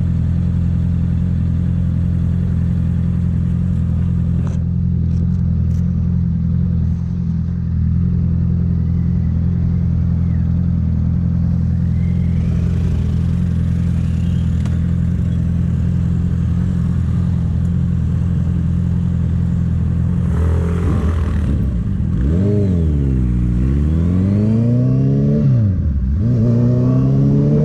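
Honda CB650F inline-four with an aftermarket Jeskap full exhaust, running at a steady engine speed. About twenty seconds in, the revs drop and climb again twice, ending on a rising note.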